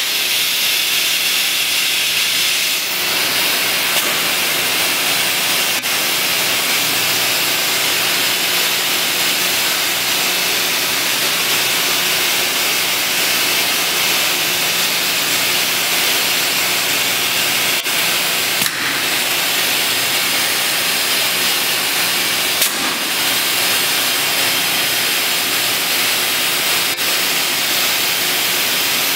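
SNX nVision contour edgebander running while a locker door panel is fed along its edge: a steady hiss over a low hum, with a few light clicks.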